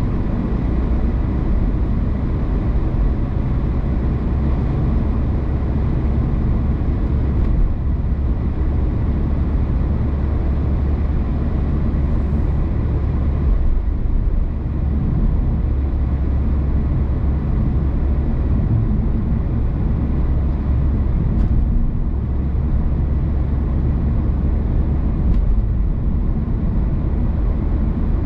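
A car driving along a road, with a steady low rumble of tyres and engine.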